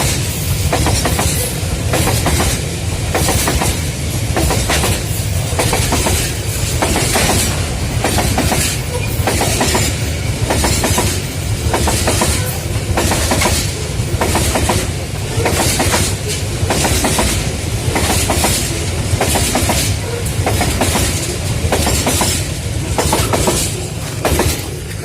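Long Babaranjang coal train's wagons rolling past, their wheels clattering in a steady rhythm over the rail joints over a continuous heavy rumble.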